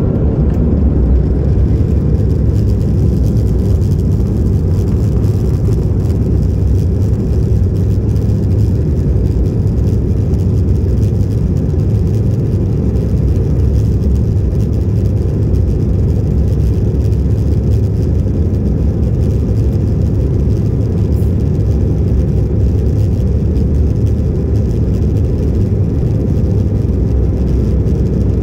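Aircraft engines and airflow during takeoff: a loud, steady low rumble that swells at the start and then holds without a break.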